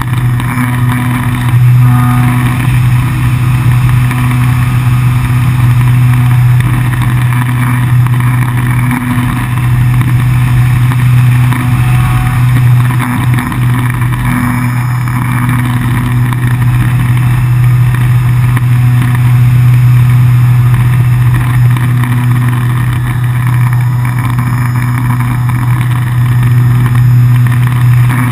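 ParkZone Radian's brushless electric motor and propeller running steadily in flight, a loud, even hum heard close up from atop the wing, with airflow hiss over it.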